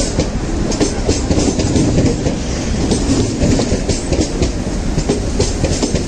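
Central Railway retrofitted EMU electric suburban train running past close by: a steady rumble of the coaches with rapid, irregular wheel clatter over the rail joints.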